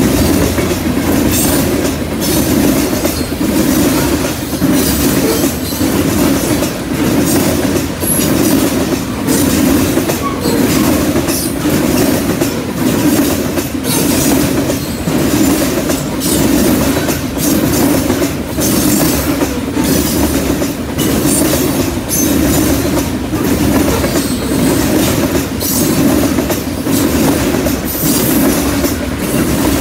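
Freight train cars, mostly covered hoppers, rolling past close by: a steady, loud rumble of steel wheels on rail, with a regular clickety-clack swelling roughly every two seconds as each car's wheel sets cross the rail joints.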